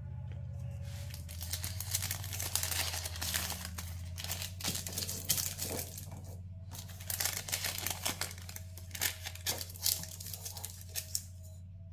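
Baking paper crinkling and rustling as it is pressed and folded down into ceramic ramekins, in a dense run of crackles from about a second in, over a steady low hum.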